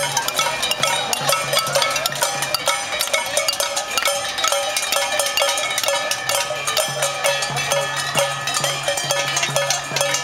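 Many handheld pots and pans struck with spoons and utensils by a crowd, making a dense, unbroken metallic clatter: the din of a casseroles pot-banging protest.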